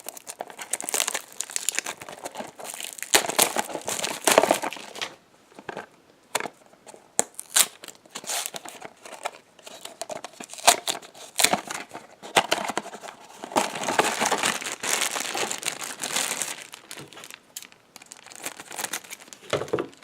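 Hands opening a Funko Mystery Minis blind box and unwrapping the figure: cardboard and plastic packaging crinkling and tearing in irregular bursts, with sharp clicks and snaps.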